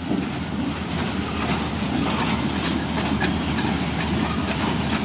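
Empty log cars of a freight train rolling past, their wheels clacking over the rail joints, with a brief high wheel squeal near the end.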